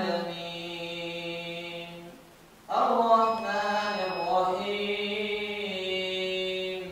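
An imam chanting Quran recitation aloud while leading prayer, in long melodic phrases with held notes. One phrase trails off about two seconds in, and after a short breath a second long phrase rises and falls.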